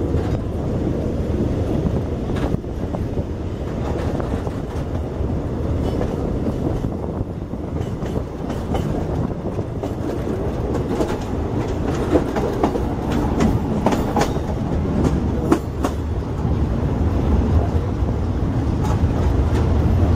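Passenger train running on the rails, a steady rumble with wheels clicking and knocking over rail joints, heard from an open carriage window. The clicks come mostly about halfway through, and the rumble grows a little louder near the end as the train draws alongside a station platform.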